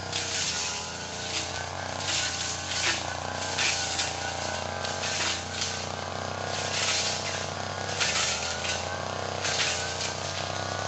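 Small petrol engine of a Tanika 438 machine running steadily under working load, its pitch wavering a little. A rushing hiss comes and goes roughly once a second as it works the ground.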